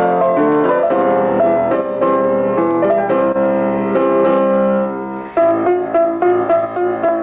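Keyboard music: a melody of piano-like notes over held chords that fades out about five seconds in, followed by a new rhythmic electronic pattern of short repeating notes.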